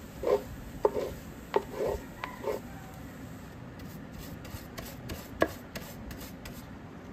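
Picture frames and a plaque knocking lightly as they are handled, several taps in the first two and a half seconds. From about the middle they are being dusted: a run of quick, scratchy rubbing strokes, about four a second, with one sharper knock among them.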